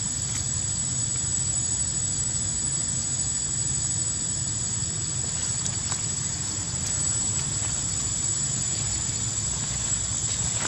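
Outdoor ambience: a steady high-pitched insect drone over a low rumble, with a few faint clicks.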